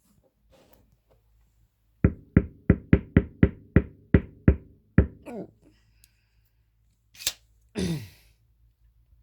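Knocking on a part of a subwoofer: about ten quick knocks, roughly three a second, each with a short ringing tone. Near the end come a sharp click and a brief noisy sound that falls in pitch.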